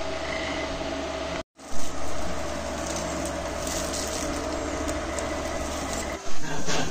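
Steady low mechanical hum with a faint constant tone, cut off briefly about a second and a half in, with a short loud knock just after the break and another near the end.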